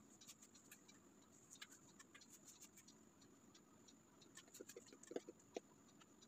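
Near silence with faint rustling and small clicks of cotton fabric being bunched by hand as elastic is fed through a waistband casing, a few slightly louder clicks about five seconds in.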